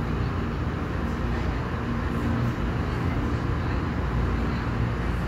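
Automatic car wash tunnel equipment running, heard from inside the car: a steady low machine hum under a constant rushing noise of water and air.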